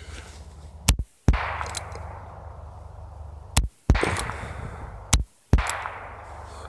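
Single-action revolver fired three times, a second or two apart; each sharp crack is followed by a rolling echo that dies away.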